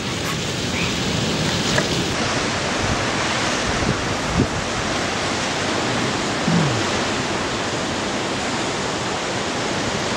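Steady rush of ocean surf breaking and washing over a rocky point.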